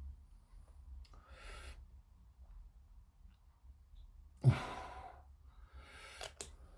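A man sighing, three heavy breaths out, the middle one the loudest with a puff of air against the microphone. A couple of small clicks come with the last breath.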